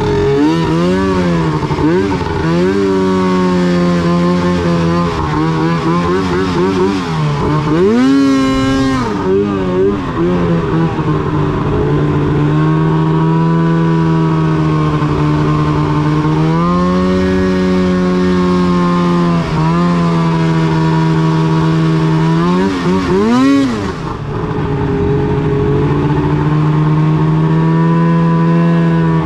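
Arctic Cat M8 snowmobile's two-stroke twin engine running under way at a mostly steady throttle. Its pitch rises and falls with throttle changes, with sharp revs about eight and twenty-three seconds in.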